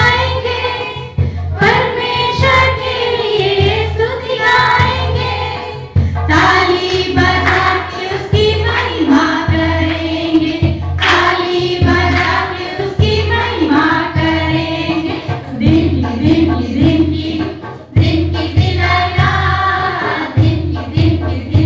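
A choir of children and women singing a song together, in phrases that carry on through the whole stretch.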